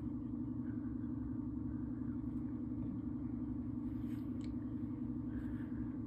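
A steady low mechanical hum with a low rumble beneath it, even and unchanging.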